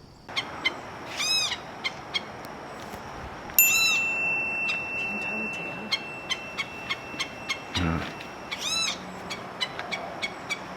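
Wild birds calling: three loud, slurred arched calls a few seconds apart, with many short sharp chips in between.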